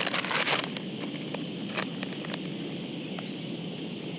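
Crinkly rustling from handling of camp gear, loudest in the first second, then a few light clicks. Under it runs a steady low rush from a camp stove burner heating water to a boil.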